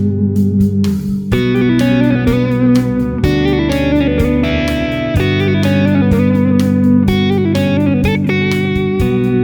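Instrumental background music led by electric guitar, with sustained notes that change every second or so over short percussive strokes.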